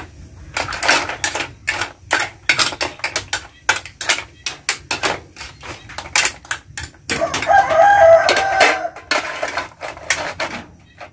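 Small clams and snail shells clattering against a metal wok as they are stirred, in many quick clicks and knocks. About seven seconds in a rooster crows once over the clatter, the loudest sound here.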